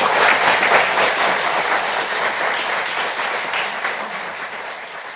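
Audience applauding, a dense patter of many hands that is loudest at the start and slowly fades away.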